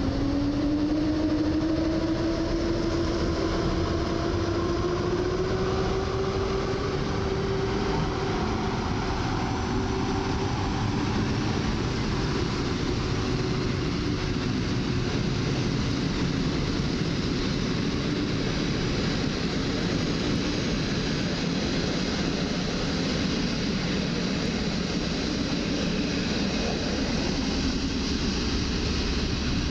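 PKP Intercity EP08 electric locomotive pulling away with its TLK passenger train, giving a whine that rises in pitch over the first several seconds as it gathers speed. A steady rolling rumble of the coaches' wheels on the rails runs under it as the train passes.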